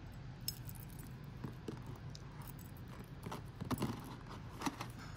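Light clicks and clinking of a gold chain necklace being handled and hung on a jewelry display bust, with a run of louder clicks in the later part.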